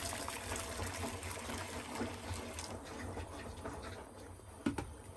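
Water poured from an electric kettle into a non-stick karahi, splashing into the pan. The pour thins out about halfway through, and a single knock comes near the end.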